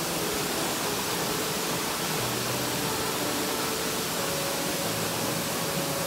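Steinsdalsfossen waterfall's falling water: a steady, even rush heard up close from behind the curtain of water.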